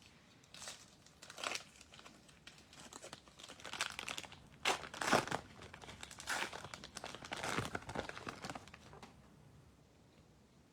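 Foil trading-card pack wrapper being crinkled and torn open by hand, in irregular rustling bursts that die away about nine seconds in.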